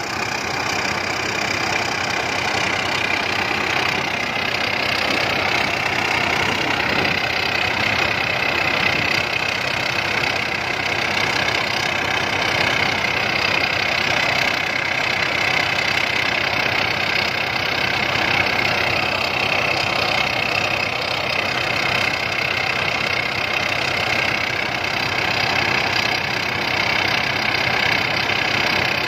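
Rice combine harvester running steadily, its engine and machinery making a constant mechanical noise with a steady high whine over it.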